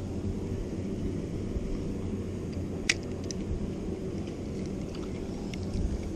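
Low, steady wind noise buffeting the microphone. A sharp click about three seconds in and a few fainter ticks come from handling the spinning reel.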